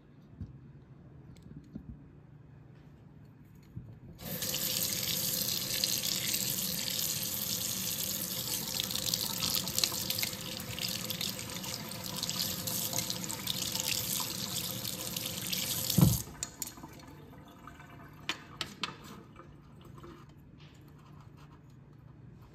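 Kitchen faucet running, rinsing dye off a freshly dyed knife handle scale held under the stream. The water comes on about four seconds in as a steady rush and stops about twelve seconds later with a sharp knock. A few drips and small clicks follow.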